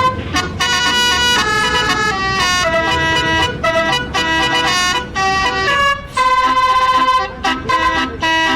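Bus basuri (telolet) musical air horn playing a melody: a run of short and held horn notes stepping up and down in pitch, with brief gaps between phrases.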